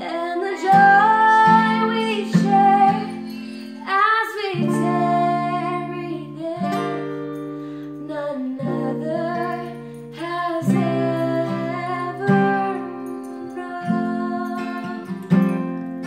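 A woman singing a slow melody, accompanied by a cutaway Fender acoustic guitar strummed and picked with a capo.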